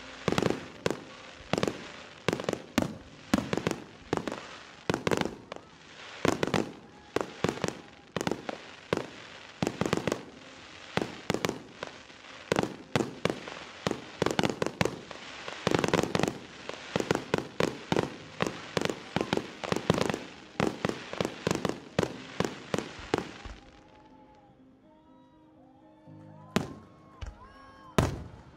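Fireworks shells going off in a rapid barrage, two or three sharp bangs a second, with music underneath. The barrage stops about 23 seconds in, leaving the music and two more loud bangs near the end.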